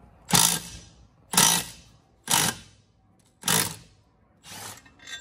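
Red cordless impact wrench hammering on a bolt under a zero-turn mower, in five short bursts about a second apart, the last one quieter.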